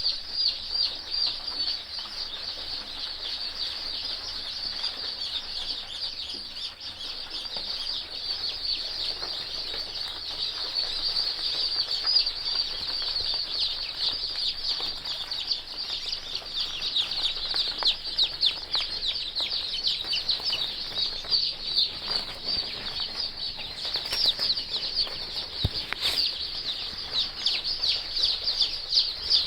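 A large brood of Kadaknath chicks peeping without a break: a dense chorus of many high, short, falling peeps.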